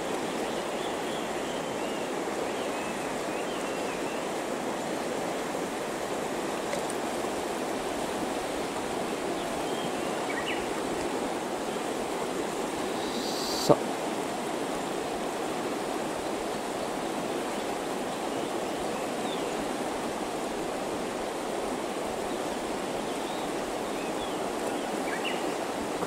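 Shallow, fast-flowing mountain-river riffle: a steady, even rush of running water. A single short, sharp click about halfway through.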